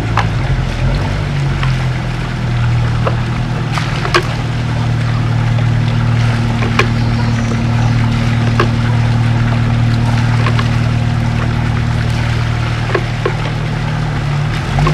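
Water pouring from a pipe into a concrete tank, with splashes and sharp clicks as chive seedlings are washed in the water, over a steady low hum.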